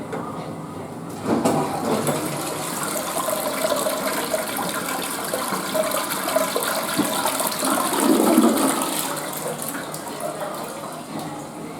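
Western-style toilet flushing: a sudden rush of water starting about a second in, running for several seconds, then easing off near the end as the bowl refills.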